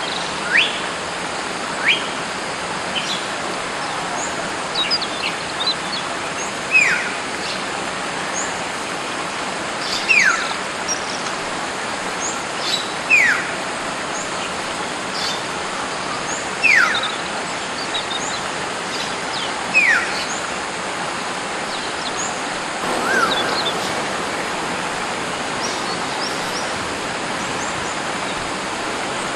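Hill myna giving loud whistles that drop sharply in pitch, one every three seconds or so, with fainter high chirps, over the steady rush of running water.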